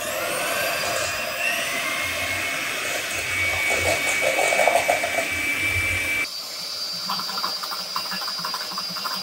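Electric hand mixer running at medium speed, its beaters whipping egg whites and sugar in a stainless steel bowl at the start of a French meringue. The motor's whine rises over the first few seconds and then holds steady. About six seconds in the sound changes abruptly to a thinner whirr with a higher whine.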